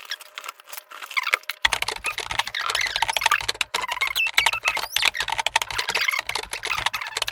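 A Rubik's Cube being turned quickly by hand, its plastic layers clicking in a rapid, irregular run that grows denser about a second and a half in.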